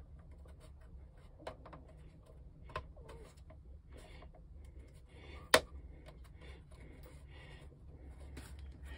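Small clicks and taps of thin plywood kit parts being handled and pressed into place, with one sharp click a little past halfway that is the loudest thing, over a steady low hum.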